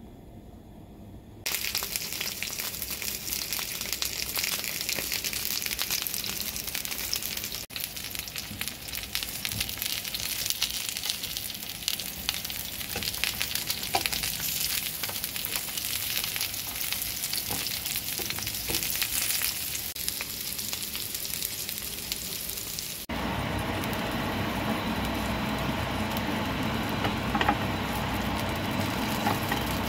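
Peeled eggplants sizzling in oil in a hot ridged grill pan, a steady frying hiss that starts about a second and a half in. The sizzle turns fuller and lower in pitch after about 23 seconds, with a few sharp clicks near the end.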